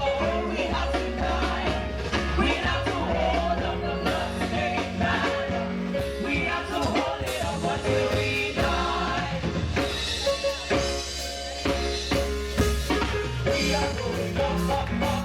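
Live church praise band playing an upbeat worship song, with drum kit, strong low bass and voices singing.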